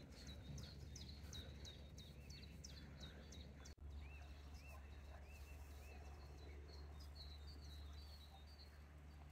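Faint birdsong: a bird repeating short high chirps about three times a second, with a few arched whistled notes from another bird, over a low steady hum.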